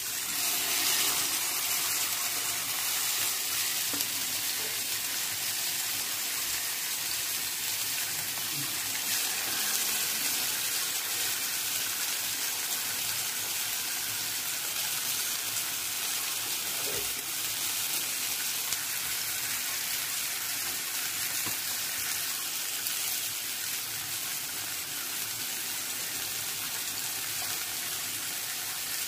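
Masala-coated pearl spot fish (karimeen) frying in hot coconut oil with curry leaves in a nonstick pan, a steady sizzle. It swells briefly about a second in as more fish go into the oil.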